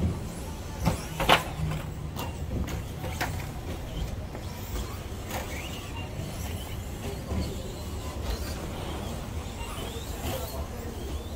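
Electric RC stadium trucks racing, their motors giving faint rising whines as they accelerate over a steady low rumble. Several sharp knocks come in the first few seconds, the loudest about a second in.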